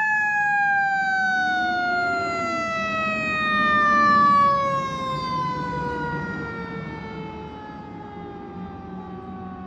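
Emergency vehicle siren winding down in one long, slowly falling tone, with a vehicle engine rumbling beneath it. It grows quieter from about halfway through.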